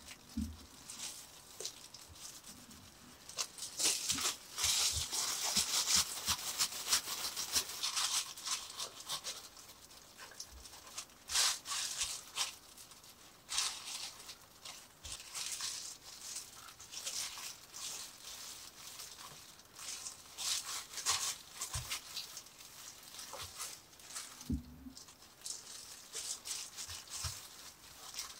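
Disposable plastic gloves crinkling and rustling in uneven bursts as hands roll and press rice-cake dough into long ropes on a silicone mat, with a couple of soft knocks near the end.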